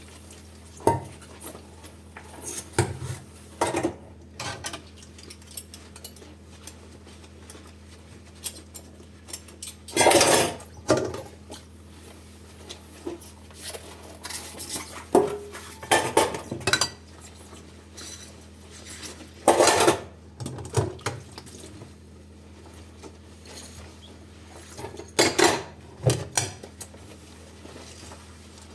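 Dishes and cutlery clinking and clattering in irregular knocks as they are washed by hand, with longer bursts of clatter about ten seconds in and near twenty seconds.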